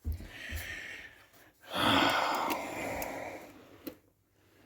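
A person breathing out: a soft breathy sound, then a long exhale of about two seconds, with a few light clicks and low knocks at the start.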